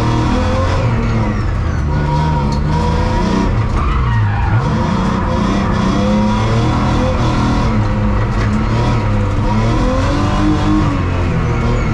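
BMW 328i race car's engine revving up and down hard through a slalom, heard from inside the cabin, with tyre squeal as the car slides around the cones.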